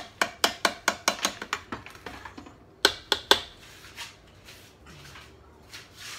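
Metal ladle clinking against the stainless steel inner pot of an Instant Pot. There is a quick run of light clinks in the first two seconds, three sharper knocks close together about three seconds in, then a few faint ticks.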